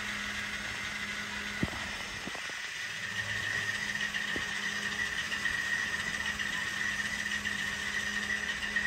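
Simulated diesel engine sound from the sound decoders of a pair of N-scale Kato GE AC4400CW model locomotives, running steadily with a constant hum and a higher whine, and a few light clicks in the first half.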